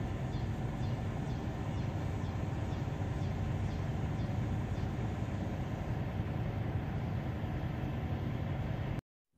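A steady low rumbling noise that cuts off suddenly about nine seconds in.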